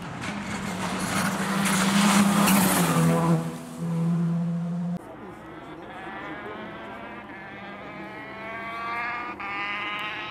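Rally cars at full speed on a special stage. First a car runs loud and close for about five seconds, with a brief lift of the throttle partway through, and cuts off abruptly. Then a Peugeot 208 R5's turbocharged four-cylinder engine is heard approaching, its pitch climbing steadily under acceleration with a quick break for a gear change near the end.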